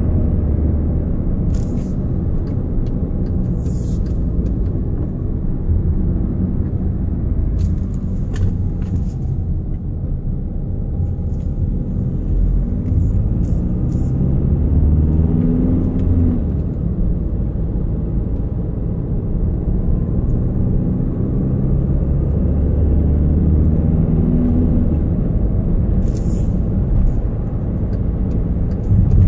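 Volkswagen Jetta TDI diesel car driving, with a steady low rumble of engine and road noise whose pitch rises and falls several times, and a few scattered light clicks. The owner complains of a constant wobbling rumble on the road.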